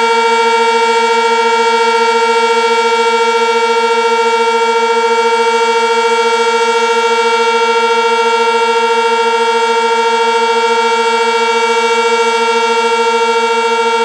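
Sentry 16V1T-B electromechanical tornado siren sounding the steady Alert signal during its test: one loud, unwavering tone held at a constant pitch.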